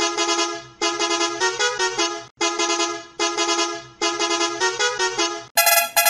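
Musical multi-tone bus horn playing a short tune: held notes, then a quick run of changing notes, the phrase heard twice with a brief break a little over two seconds in. The horn is played in the left channel only.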